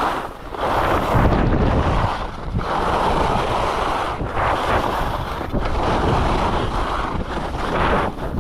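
Skis scraping and hissing over packed snow during a downhill run, with wind buffeting the camera microphone. The rushing swells and dips every second or two, with the turns.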